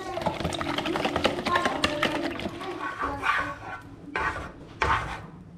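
Fork beating eggs in a bowl: rapid clicking of metal against the bowl, with a few heavier strokes near the end.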